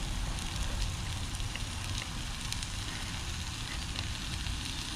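Small gas-canister camping stove burning steadily under a pan of bacon and black pudding: an even hiss with the light sizzle of the frying meat and a few faint ticks.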